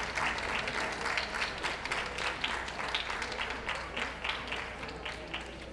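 Ringside audience applauding with many overlapping hand claps, the applause fading gradually toward the end.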